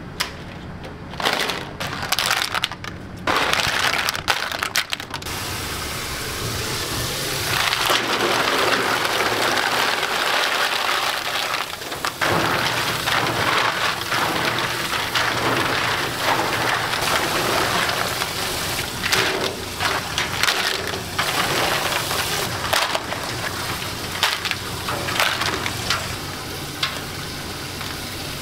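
Shellfish being cleaned by hand, their shells clattering and grinding against one another. Scattered clicks at first, then a steady, dense rattle from about six seconds in.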